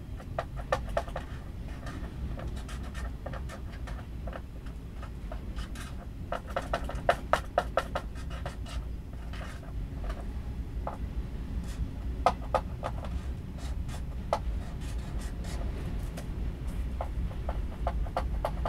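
Freight train of autorack cars rolling past: a steady low rumble with many irregular sharp clicks and rattles, bunched most thickly about six to eight seconds in.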